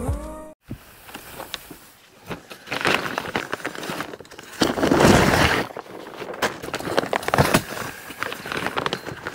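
A HABUTWAY folding camping cot being pulled out of its nylon carry bag: fabric rustling, loudest about five seconds in, and scattered clicks and knocks from the cot's frame. A music sting ends about half a second in.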